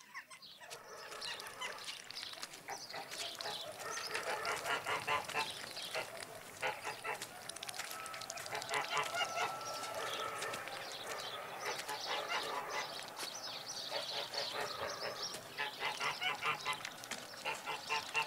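Domestic geese honking in repeated bouts of rapid calls.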